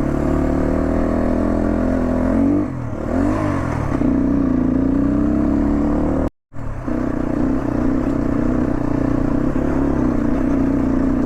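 Motorcycle engine running steadily while riding, with a dip and rise in engine pitch about three seconds in. The sound cuts out completely for a moment at about six and a half seconds.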